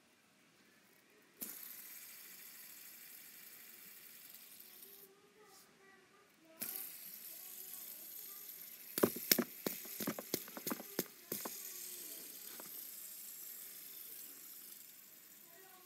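A fidget spinner whirring with a high, hissy bearing sound. It is flicked into a spin about a second in and again near seven seconds. A run of sharp clicks comes between about nine and eleven seconds, then the whirr carries on and slowly fades.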